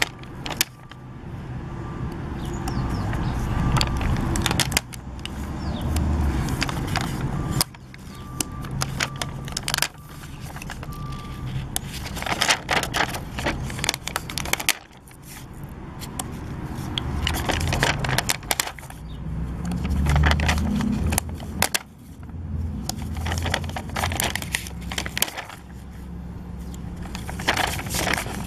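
Puffy plastic stickers being peeled off their backing sheet and pressed onto paper right at the microphone: crackling, clicking and scraping of the plastic sheet, with a low rumble that builds and cuts off every few seconds.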